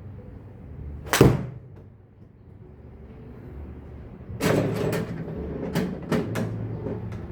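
A golf club swung through, with one sharp swish-and-hit about a second in, followed from about four seconds in by a cluster of knocks and several sharp clicks.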